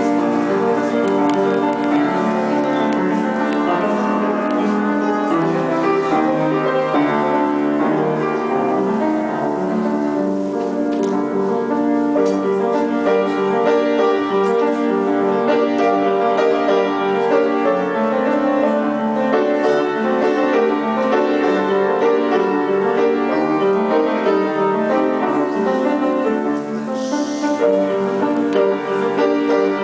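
Piano playing a melodic instrumental piece, notes overlapping continuously.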